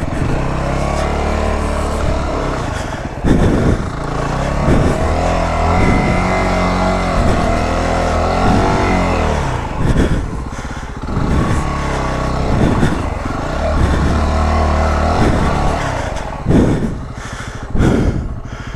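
Yamaha WR250R dual-sport motorcycle's single-cylinder four-stroke engine revving up and dropping back again and again as the bike is worked through deep snow.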